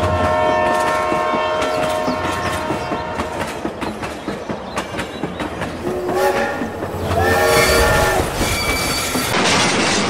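Train horn sounding over rolling train clatter: a held blast at the start and a longer, wavering blast about six seconds in. A loud burst of noise sets in near the end.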